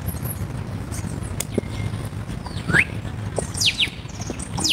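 Birds chirping: a few short, high calls, one rising and a pair of quick falling ones, over a steady low background rumble.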